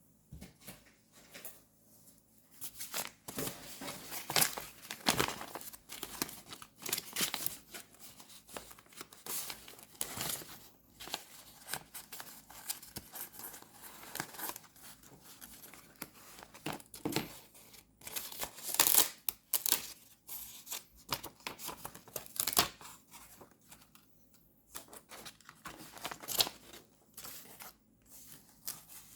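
Paper and sticker sheets being handled close to the microphone: irregular rustling, peeling and tearing strokes, with short pauses between them.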